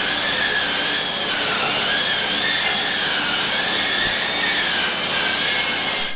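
Electric angle grinder whining steadily on steel, its pitch wavering up and down as it is pressed into the work. It cuts off suddenly at the end.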